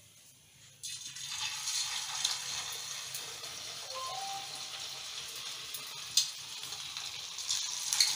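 Cornflour-coated chicken pieces deep frying in hot oil in a kadai: a steady sizzle with scattered crackling pops, starting suddenly about a second in as the first piece goes into the oil.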